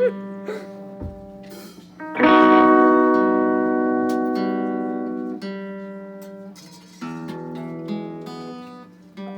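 Electric or acoustic guitar strummed once about two seconds in, the chord ringing out and slowly dying away, followed by a few softer plucked notes near the end as the player checks a chord.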